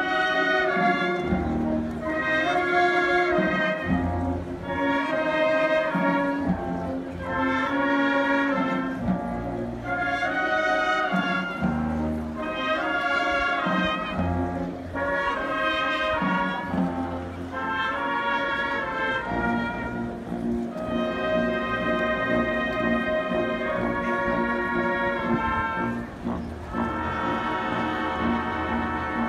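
Brass band playing a slow funeral march: brass chords swelling in repeated phrases about every two seconds over low bass notes, held longer near the end.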